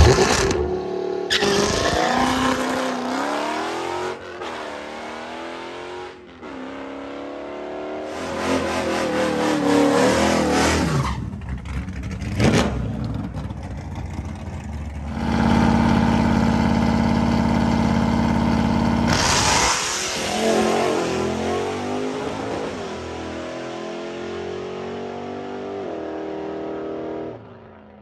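Drag-racing cars launching and accelerating hard down the strip, engines revving up through the gears in repeated rising sweeps. Near the middle there is a stretch of steady high revs, and the sound breaks off abruptly several times between runs.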